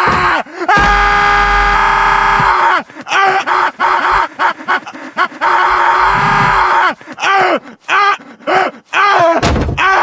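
Family Guy audio slowed and time-stretched in the AudioStretch app: Peter Griffin's voice drawn out into long, warbling held tones that no longer sound like words. Over the first few seconds there is one long held tone, then shorter stretched syllables with brief gaps between them.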